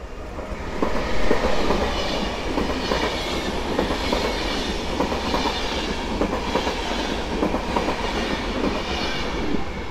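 PKP Intercity locomotive-hauled express passenger train passing close at speed: a steady rumble of the coaches with the wheels clacking rhythmically over the rails, loud from about a second in.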